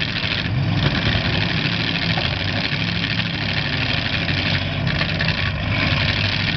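Demolition derby cars' engines running and revving, a loud, even wash of engine noise.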